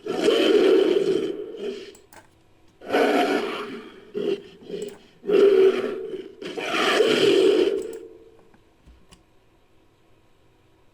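Made-up giant baboon (Dinopithecus) creature sound effect, built from primate and monster recordings: a run of loud roars, each about one to one and a half seconds long, with a few short grunts in the middle, ending about eight seconds in.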